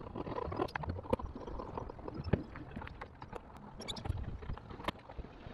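Screws being driven by hand with a screwdriver into a plastic caravan roof vent cover: a run of irregular clicks and small knocks of the tool and the plastic shell.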